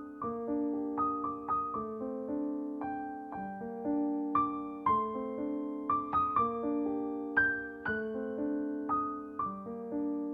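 Background music: a gentle keyboard piano melody, notes and chords struck one or two a second and left to fade.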